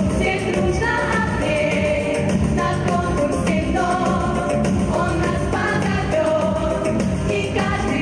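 A pop song: singing over an instrumental backing track.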